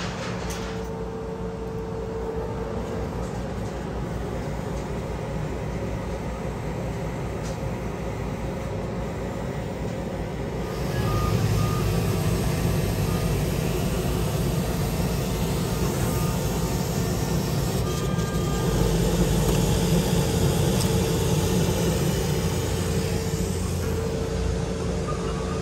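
Steady machine hum and fan noise that gets louder about eleven seconds in, as a laser cutter runs its exhaust fan and air assist while cutting. A few short high beeps sound around the middle and near the end.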